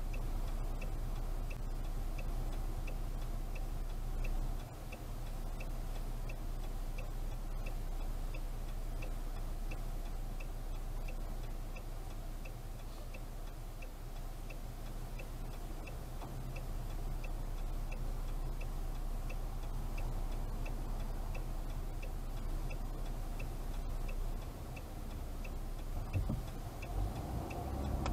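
Car turn-signal relay ticking steadily while the car idles at a light, over the low hum of the idling engine. Near the end the engine note starts to rise as the car pulls away.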